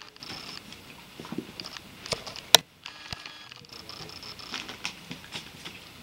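Light, scattered clicks and rustles of a Doberman and a small puppy play-fighting on carpet, the Doberman mouthing the puppy. One sharp click about two and a half seconds in is the loudest sound.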